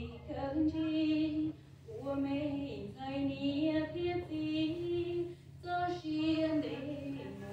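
A woman singing a slow Hmong song solo into a microphone. She holds long notes with a slight waver, in phrases broken by short breaths.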